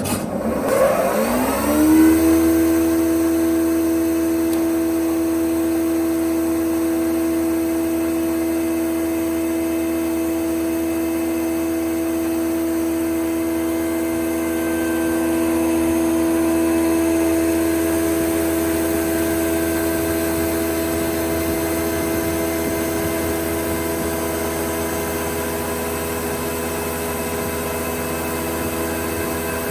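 Jaroma DSFA-40 thickness planer starting up: its 4 kW motor and four-knife cutterhead spin up over about two seconds with a rising whine, then run steadily at speed with a constant whine over a low hum.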